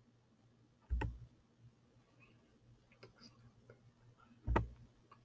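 Two sharp clicks at a computer, about a second in and again about three and a half seconds later, with a few faint ticks between: the clicks advancing a slideshow to the next slide.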